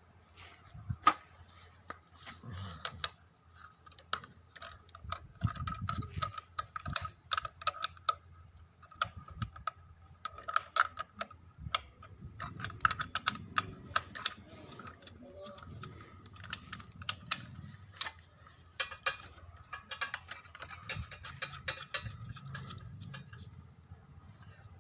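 Hand tools working on a petrol generator's engine parts: irregular small metal clicks and clinks, with a few louder knocks.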